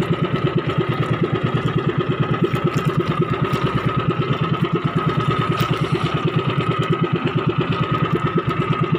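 Engine of a motorized outrigger banca running steadily at sea with a fast, even putter. A steady high whine sits over it.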